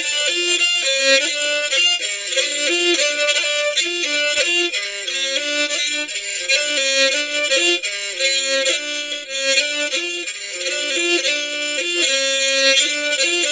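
Instrumental background music: a bowed string melody moving from note to note at a steady pace.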